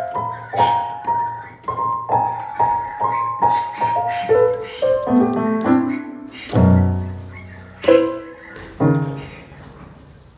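Piano music: a melody of single struck notes, then a few low chords that ring out and fade away near the end.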